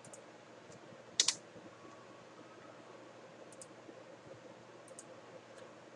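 Computer keyboard and mouse clicks over low room hiss: one sharp click about a second in, then a few faint ticks.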